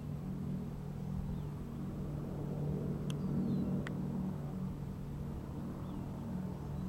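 B-17 Flying Fortress bomber flying overhead, its four Wright R-1820 Cyclone radial engines making a steady low drone.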